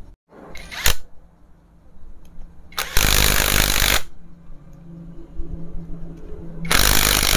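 Cordless impact wrench with a long socket extension running in bursts as it drives small 8 mm bolts into a Bajaj Discover 150 motorcycle engine: a short burst about half a second in, then two longer runs of about a second each, around three seconds in and near the end.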